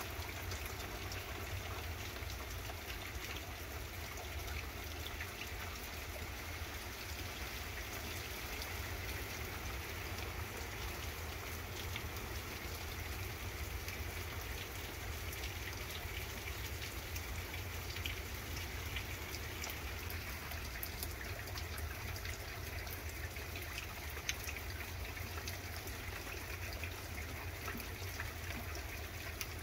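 Steady rain falling on garden foliage and pavement, a constant hiss with many small drops ticking close by, over a low steady rumble.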